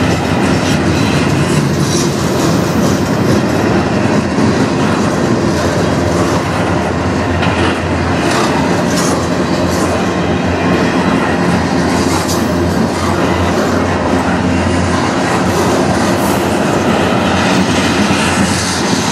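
Freight train cars rolling past close by: a steady rumble of steel wheels on rail with clickety-clack over the joints and a few brief sharp high-pitched wheel sounds.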